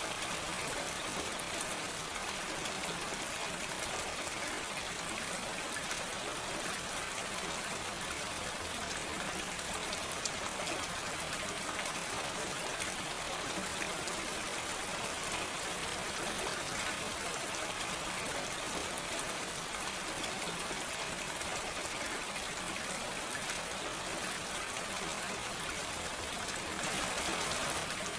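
Steady, gentle rain, its falling drops making an even hiss dotted with faint individual drop ticks, without thunder.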